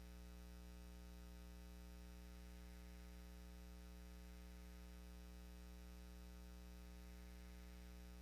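Near silence: a steady low hum with faint hiss, unchanging throughout.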